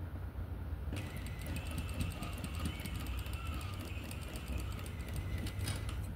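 Sewing machine stitching a seam through cotton fabric with a rapid, even clatter. It starts about a second in and stops near the end.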